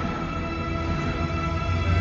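Music with long held notes, and no firework bangs.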